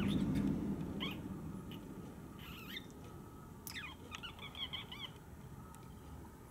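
Budgerigars giving short, scattered chirps, then a quick warbling run of chatter about four seconds in. A low hum fades away over the first couple of seconds.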